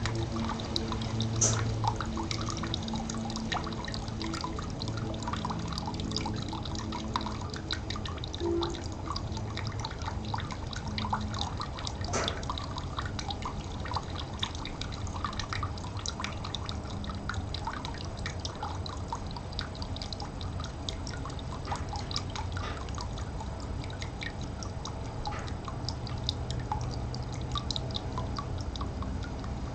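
Stream water trickling, with many small drips and splashes. A low steady hum sits underneath for the first ten seconds or so and comes back near the end.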